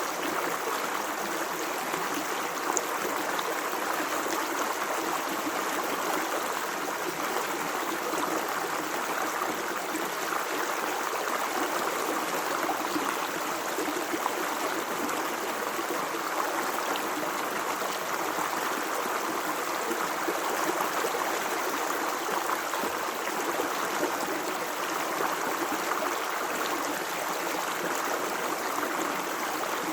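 Flowing water running steadily, an even, unbroken rush like a stream.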